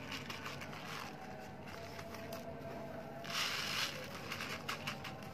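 Dry uncooked rice grains rustling and trickling as they are scooped into a woven young-coconut-leaf ketupat casing. There is a louder rush of pouring grains about three and a half seconds in, followed by a few crisp clicks from the leaf.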